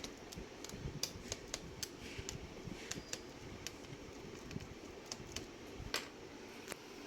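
Irregular sharp light clicks and taps, about one or two a second, from the plastic case and small screws of a Dell Latitude E5420 laptop being handled and put back together, over a faint steady hiss.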